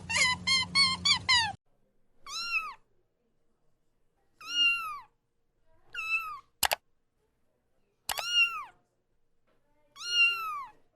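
Cat meowing five times, each meow a short call that rises and falls in pitch, about two seconds apart. It follows a rapid run of short animal calls that cuts off after about a second and a half. There are two sharp clicks between the middle meows.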